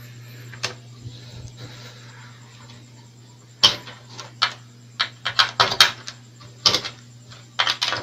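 A metal cable plug being handled and knocked against a small audio mixer's input sockets: a run of irregular sharp clicks starting about three and a half seconds in, over a steady low hum.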